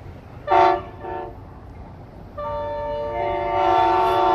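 Approaching diesel locomotive's Nathan K5LA air horn sounding a chord. It gives two short blasts about half a second apart, then a long blast beginning a little over two seconds in that grows louder as it goes on.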